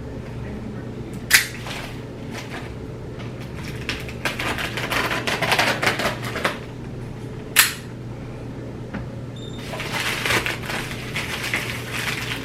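A delivered package being opened by hand: packaging rustling and tearing in two stretches, with two sharp snaps, one about a second in and one past the middle.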